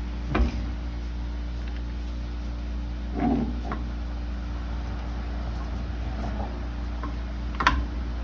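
A steady low machine hum, with three short knocks: about half a second in, around three seconds, and a louder one near the end.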